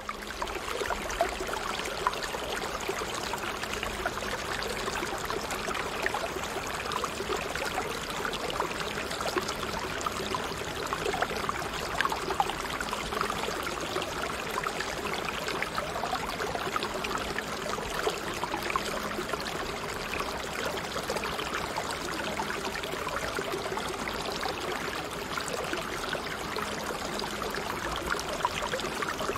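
Running water, a steady babbling stream with a fine crackle and no breaks. A faint steady low tone lies underneath.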